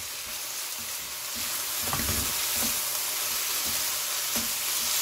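Seaweed stems stir-frying with onion in a nonstick wok: a steady sizzle, with a few light taps and scrapes of a wooden spatula and spoon as they toss the food.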